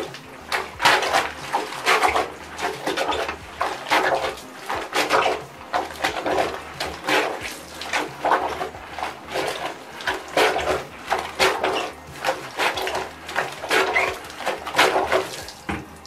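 Hand plunger with holes drilled in its side being pumped up and down in a bucket of soapy water and clothes, water splashing with each stroke at about two strokes a second. This is the wash cycle of a DIY bucket washing machine, forcing detergent water through the clothes.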